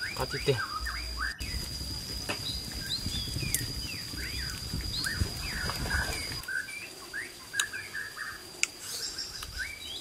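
Small birds chirping with many short rising and falling calls, over a steady high whine and a low patter that both cut off about six and a half seconds in.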